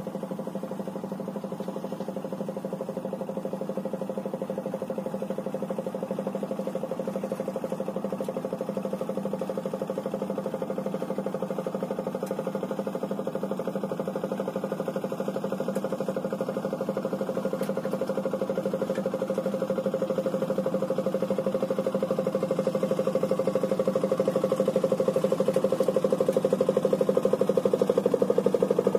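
Small wooden fishing boat's engine running steadily with a fast chugging pulse, growing louder as the boat approaches.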